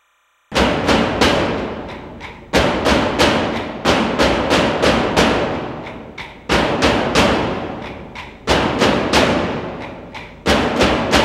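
Soundtrack percussion: heavy drum strikes begin about half a second in. They come in phrases of several quick hits, each ringing out and fading, and a new phrase starts about every two seconds.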